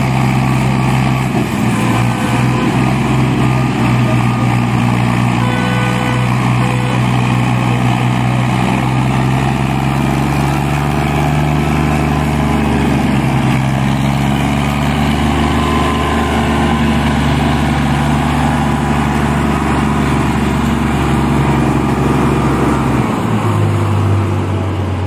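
Diesel tractor engines running steadily and hard under heavy load while towing a loaded sugarcane trolley. The engine note shifts lower near the end.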